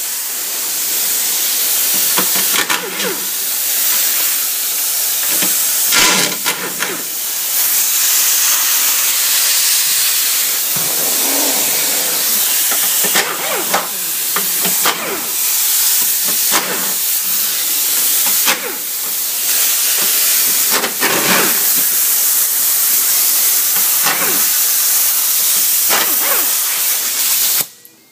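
Compressed air hissing steadily from a pneumatic air tool on a shop air hose, with a few brief knocks; it cuts off suddenly near the end.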